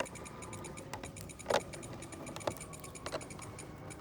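A few light clicks and knocks over faint steady background noise, the loudest about a second and a half in.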